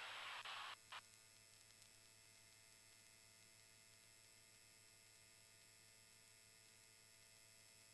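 Near silence on the aircraft's radio and intercom audio feed: a hiss of open radio cuts off with a short click just under a second in, leaving a faint steady electrical hum.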